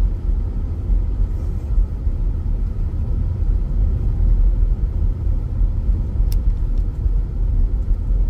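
A car being driven, heard from inside the cabin: a steady low rumble of engine and road noise. There is a single faint click about six seconds in.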